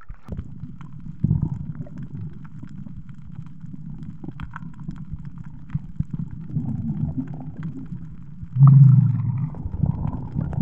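Muffled low rumble of water moving against a camera held at and just below the sea surface, with scattered knocks. There is a louder low rush of water about nine seconds in.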